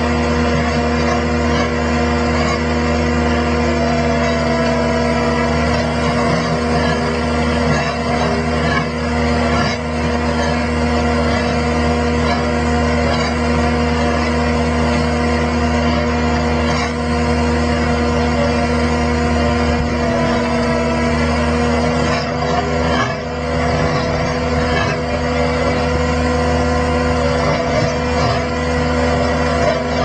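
Tracked skid steer's engine running steadily, driving the hydraulics of a Fecon Stumpex auger stump grinder as it bores slowly into a tree stump.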